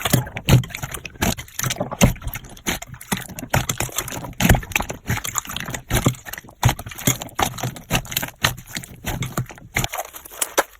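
Slime being squeezed and kneaded by hand, making a fast, irregular run of sticky clicks and pops. The deeper squelching drops out near the end, leaving only lighter crackling.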